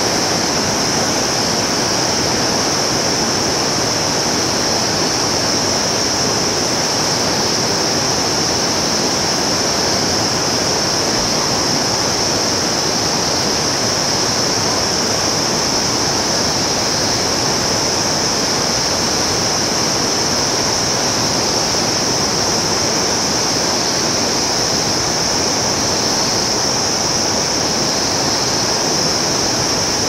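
Rushing white water of a fast mountain river tumbling over boulders, a steady unbroken roar with a constant high hiss over it.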